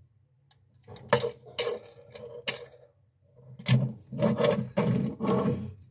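Mattel Jackson Storm toy car being handled and pushed across a wooden tabletop: scraping and rattling of its wheels and body, in two stretches about a second in and again from about three and a half seconds.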